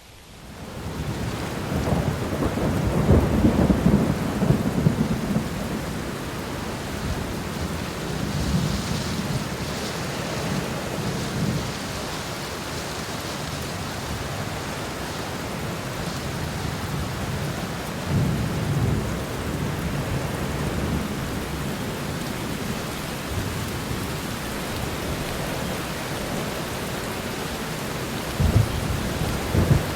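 Steady rain with thunder rumbling, swelling up within the first second; the longest, loudest rumble comes a few seconds in, with further rolls about two-thirds of the way through and near the end.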